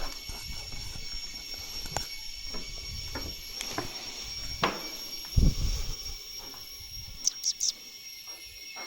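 Rainforest ambience: a steady, high, many-pitched insect drone, with scattered knocks and thumps and three quick high chirps near the end.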